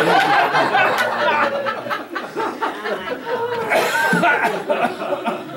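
An audience laughing and chuckling, with the speaker laughing along.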